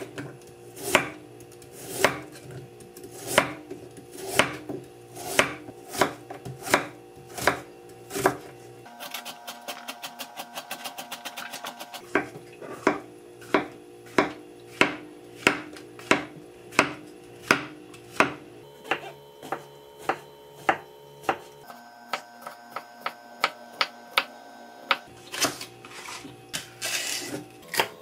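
Chef's knife cutting vegetables on a wooden cutting board: single sharp chops about one a second, with a quick run of rapid chops partway through.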